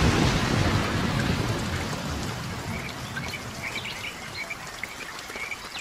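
A logo sound effect's rumble and hiss, slowly dying away after a boom. Faint bird chirps come in about halfway through.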